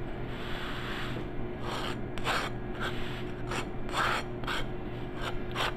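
A table knife spreading soft butter spread across the crust of hot skillet cornbread: a run of short scraping strokes, about two a second, beginning about a second and a half in.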